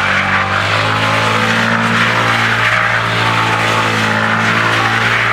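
Yamaha MT-15's single-cylinder engine held at steady high revs, with a hiss of the rear tyre spinning against the ground, typical of a burnout on the worn-out tyre.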